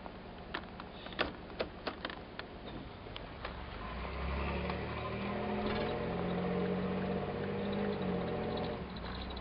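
A few sharp clicks and knocks, then the 1992 Chevy Camaro's 3.1-litre V6 accelerating from about four seconds in, heard from inside the cabin, growing louder and easing off shortly before the end.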